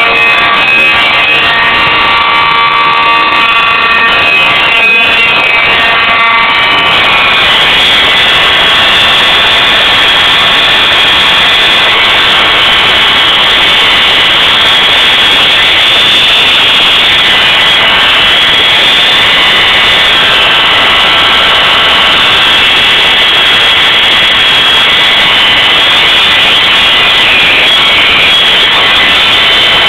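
Simplex fire alarm horn sounding continuously, very loud and buzzy, with a slight change in its tone about seven seconds in.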